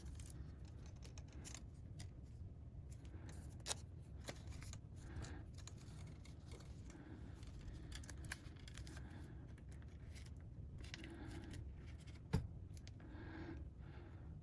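Faint clicks and light scraping of small metal tools and laptop parts being handled while a MacBook Pro's heatsink is refitted, with a sharper click a little before the end.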